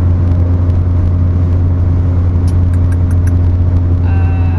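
Steady drone of a car driving at highway speed, heard from inside the cabin: engine and road noise with a deep, even hum. About four seconds in, a woman starts singing along.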